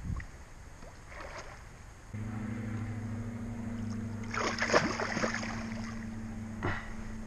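Hooked pike thrashing and splashing at the water's surface for about a second, midway through, with a shorter splash near the end. A steady low mechanical hum starts abruptly about two seconds in and runs on underneath.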